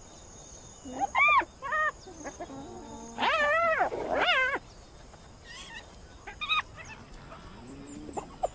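Spotted hyenas calling with short, high-pitched, wavering whines: four louder calls in the first half, then a few fainter ones.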